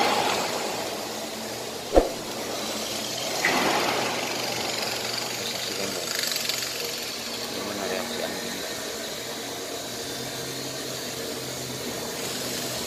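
A vehicle engine idling steadily, with a single sharp click about two seconds in.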